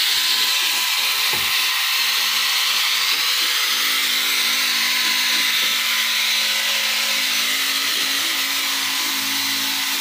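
Cordless drill running steadily, drilling into the top of a wooden bed frame.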